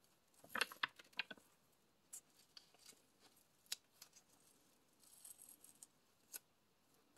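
Masking tape being peeled from the edge of a paper journal page, with paper handling: a quick run of crackles about half a second in, then scattered soft clicks and a brief rustle.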